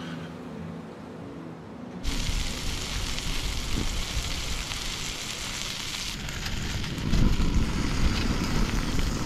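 Butter and rock lobster sizzling in a foil-covered frying pan on a portable gas camping stove, a steady hiss that cuts in about two seconds in, with wind rumbling on the microphone. Before the sizzle, a short stretch of background music.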